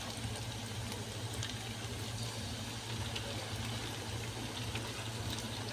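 Steady sizzling of spices and tomato paste frying in oil in a pot, over a low steady hum.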